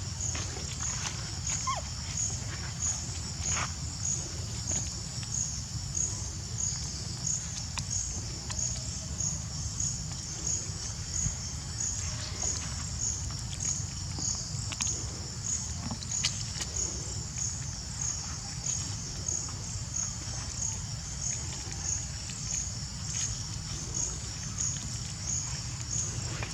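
Insects chirping in a steady, even rhythm of high-pitched pulses, over a constant low rumble.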